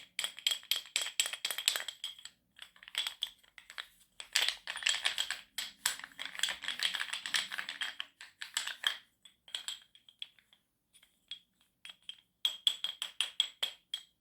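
Pieces of chalk being tapped for ASMR: quick runs of sharp, light clicks with brief pauses, thinning out around the middle and picking up again near the end.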